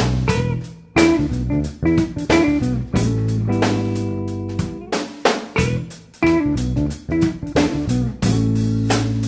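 Background music: a guitar-led band track with bass guitar and a steady drum-kit beat.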